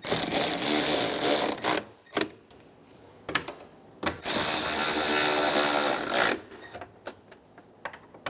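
Cordless electric ratchet running in two bursts of about two seconds each, snugging down the 10 mm nuts that hold a mirror to a truck door, with a few short clicks between the runs.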